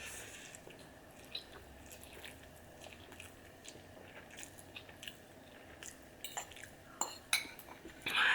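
A person chewing spicy instant ramen noodles close to the microphone: soft chewing with scattered small wet mouth clicks, and a few sharper clicks bunched about six to seven and a half seconds in.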